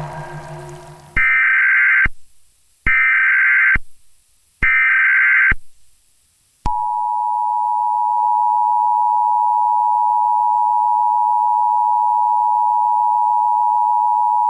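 Emergency Alert System tones: three short bursts of the SAME data header, a high two-pitch screech each about a second long, then about 6.5 s in the steady two-tone EAS attention signal starts and holds. They mark the start of an emergency alert broadcast.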